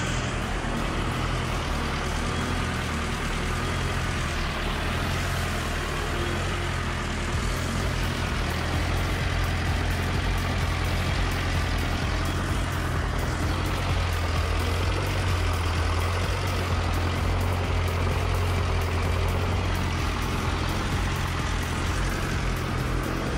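Freshly overhauled VMZ tractor diesel engine running steadily on a test stand, a little louder from about eight seconds in.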